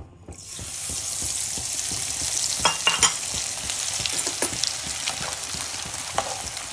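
Kamarkas (Butea gum) dropped into hot ghee in a non-stick kadhai, sizzling and foaming hard as it fries. The sizzle starts about half a second in and holds steady, with a few clicks of a metal spoon stirring against the pan, the loudest around three seconds in.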